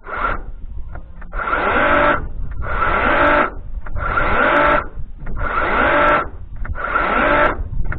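Parkside X20V cordless chainsaw's electric motor and chain run in about six short bursts, each under a second: every trigger pull spins up with a rising whine, the tool's soft start, and the sound cuts off when the trigger is let go. It is the new saw's first start.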